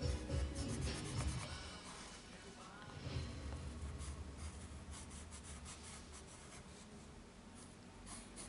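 Colored pencil scratching on coloring-book paper in short, repeated shading strokes.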